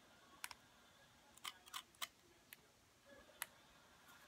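Faint, sharp clicks of a small metal tool on the coils of a rebuildable atomizer's deck, about six, spaced irregularly.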